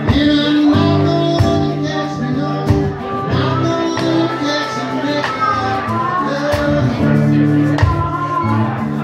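Live band playing: guitar over a steady low accompaniment, with drum and cymbal hits at a regular beat.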